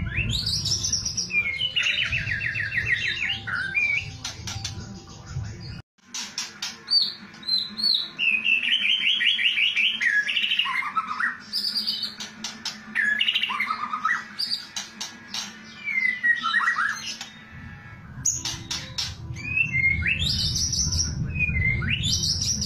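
White-rumped shama (murai batu) singing a varied song of loud whistles sweeping up and down, rapid trills and dry rattling 'kretekan' notes. The song cuts out for a moment about six seconds in, and a low rumble sits under it at the start and near the end.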